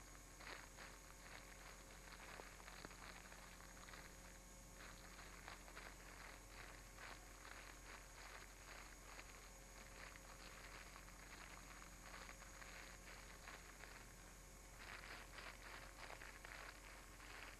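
Near silence: steady camcorder hiss and hum, with faint, irregular soft crackling throughout.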